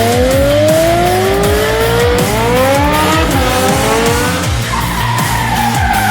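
Electric motor of a 1/6-scale RC stunt motorbike whining and rising in pitch several times as it speeds up, over background music with a steady beat.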